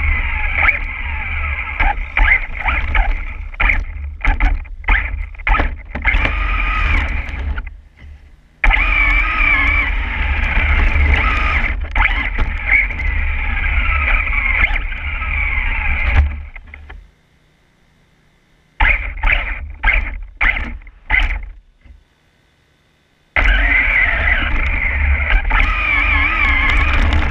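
Motor and gears of a radio-controlled truck whining, the pitch rising and falling with the throttle over a low rumble from the ground and wind. At times the throttle is blipped in short pulses, and twice in the second half the sound drops to near silence for a second or two as the truck stops.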